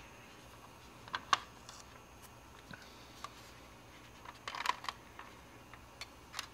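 Plastic parts of a 1/48 scale F-4G Phantom model kit clicking and tapping against each other as the fuselage and wing assembly is handled and test-fitted: a couple of sharp clicks about a second in, a short rattle of clicks past the middle, and a few more near the end.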